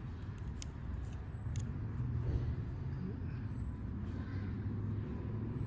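Steady low background rumble, with a couple of short light clicks in the first two seconds.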